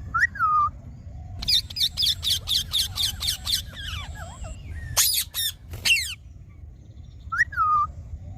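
Ringneck parrot calling: a short call at the start, then a quick run of harsh calls at about four a second, followed by a few single squawks spaced out toward the end.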